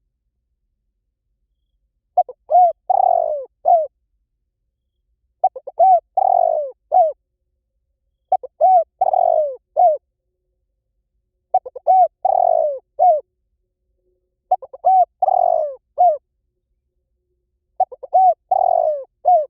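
Spotted dove cooing: the same short phrase of several coos with a longer middle note, repeated six times about every three seconds.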